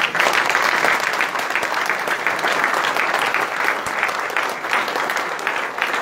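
Crowd applauding: many people clapping together in a dense, steady applause.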